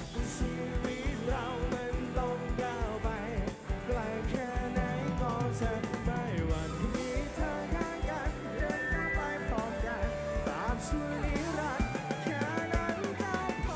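Live rock band playing a song over a large concert sound system: a singer's voice over electric guitars and a drum kit.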